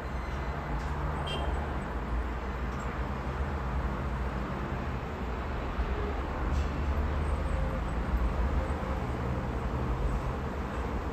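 Strong, gusty wind rumbling, mixed with steady road traffic, including the engines of heavy trucks passing. The wind gets louder and more uneven in the second half.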